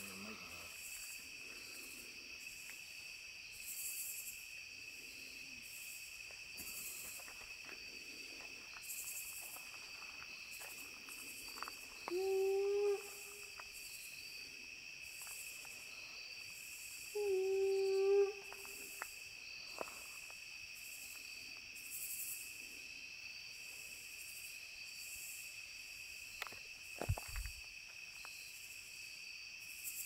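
A man's imitation howl: two calls of about a second each, several seconds apart, each holding a steady pitch, over a steady chorus of crickets and other insects. A few sharp knocks near the end.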